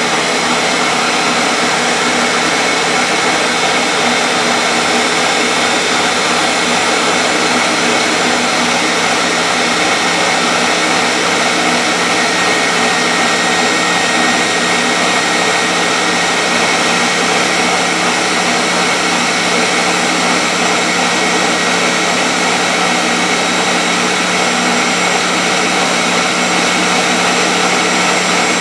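Ninja countertop blender running on its mix setting, churning thick pound cake batter: a loud, steady motor hum with a high whine.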